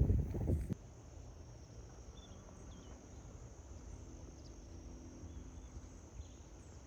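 Crickets chirring as a steady high-pitched drone, with a few faint bird chirps. A louder low rumbling noise cuts off suddenly less than a second in.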